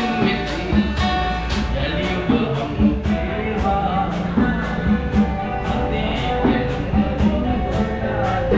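Live band music: a man singing to an acoustic guitar over a steady beat of about two strokes a second.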